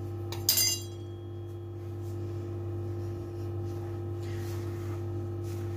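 Hands mixing a dry powdery mix of ground almonds, sesame and flour in a large terracotta dish, a faint soft rustle over a steady low hum. A brief metallic clink about half a second in, typical of the metal spoon knocking the dish.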